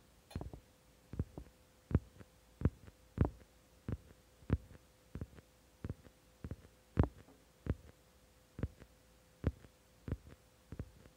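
Fingers tapping and swiping on a phone touchscreen, picked up by the phone's own microphone as soft thumps about twice a second, irregularly spaced. A faint steady hum runs under them.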